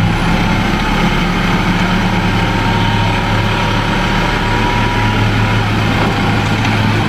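Diesel engine of a light dump truck running with a steady low drone while its hydraulic hoist tips the loaded bed.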